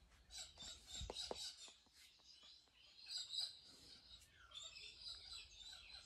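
Faint chirping of birds, with a couple of soft knocks about a second in.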